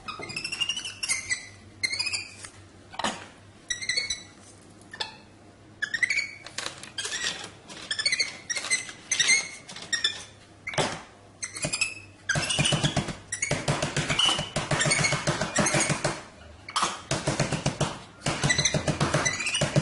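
A monkey squeaking in short, high, repeated calls, which turn into a faster, louder run of chattering squeaks about twelve seconds in.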